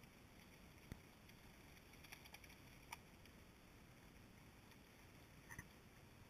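Near silence from a GoPro sealed in its waterproof housing deep underwater, with a low hiss and a few faint clicks.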